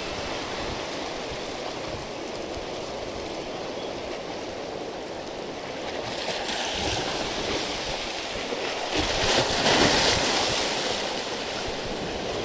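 Choppy sea surf washing against shore rocks, a steady rush of water with a louder wave breaking and surging in about nine seconds in.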